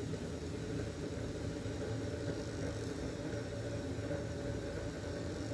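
Steady low mechanical hum, unbroken and even throughout.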